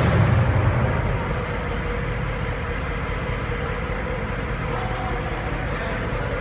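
A steady low mechanical hum, like an engine idling, with a faint steady tone above it.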